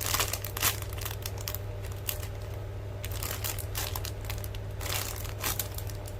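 Plastic packaging crinkling and rustling in irregular bursts as squishy toys are handled, over a steady low hum.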